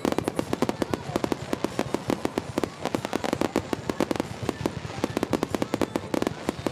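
Fireworks fired in a rapid barrage: an unbroken string of bangs and crackles, many each second, as shells and rising comets burst together.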